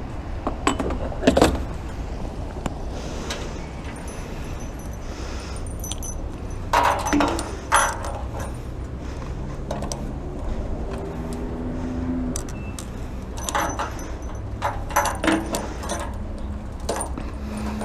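Keys jangling and clicking in short scattered bursts, a few clusters of rattles over a low steady hum.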